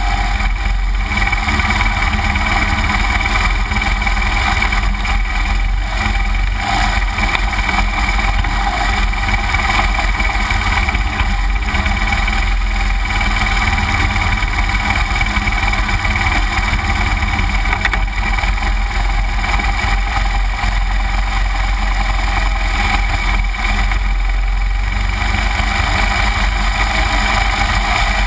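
2009 BMW R1200GS Adventure's flat-twin boxer engine running steadily at low speed as the bike climbs a dirt trail, with no pauses or sharp knocks.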